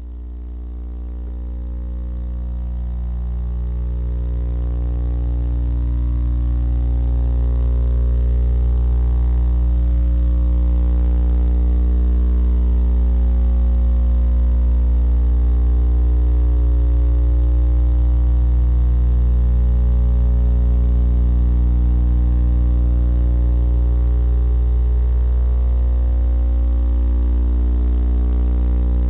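Steady low electrical hum with a stack of buzzing overtones, swelling up over the first several seconds and then holding level and unchanging.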